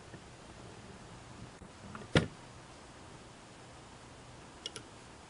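Metal parts being handled: one sharp click about two seconds in, then two faint ticks near the end, over quiet room tone. The sounds come from the just-removed rotary hook and shaft of a Singer 401A sewing machine knocking lightly as it is handled.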